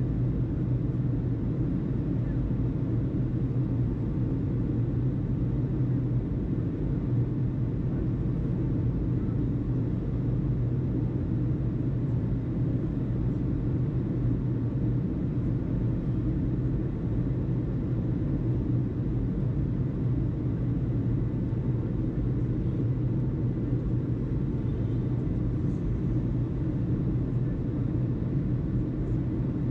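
Steady low rumble of aircraft engine noise with a droning hum, unchanging throughout.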